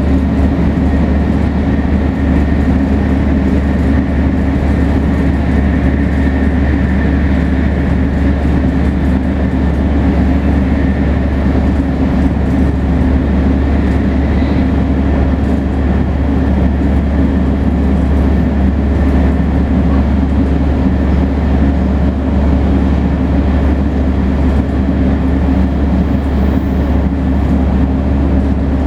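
Shinkansen 500 series train with Toshiba GTO-VVVF traction running at a steady speed: an even, loud rumble of wheels and running gear with a faint, steady high tone above it.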